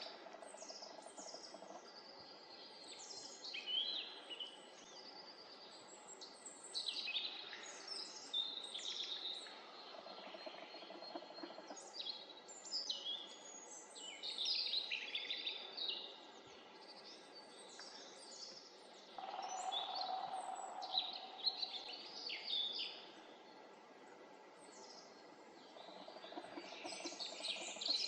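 Several small songbirds calling and singing in woodland: many short, high chirps and brief trills overlapping throughout. A brief low, steady sound rises and fades about two-thirds of the way in.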